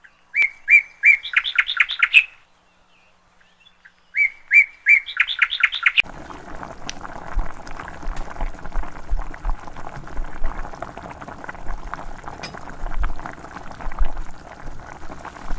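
A songbird sings the same short phrase twice, each time a few repeated notes and then a quick run of rapid notes. From about six seconds in, a steady hiss with scattered clicks and low knocks takes over.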